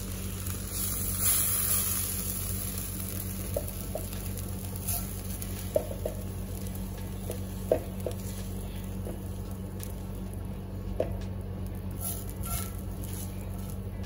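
Spatula scraping hot cooked onion and tomato out of a heavy cast iron pan into a steel mixer-grinder jar: a soft sizzling hiss, strongest about a second in, with a dozen short scrapes and light knocks scattered through.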